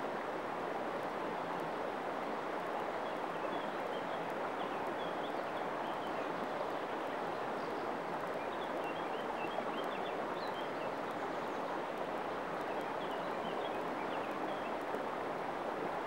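Shallow river water running steadily over stones, with a small bird's quick, high chirps in three short spells.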